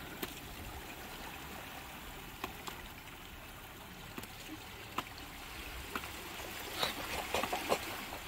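Sea water washing and trickling over a rocky, mussel-covered shoreline, with scattered light clicks and taps and a short cluster of them near the end.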